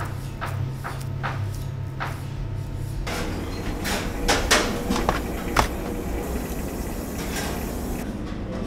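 Commercial kitchen sounds: a steady low hum with scattered soft clicks and knocks. The background changes about three seconds in, and a run of sharper clicks and clatter follows in the middle.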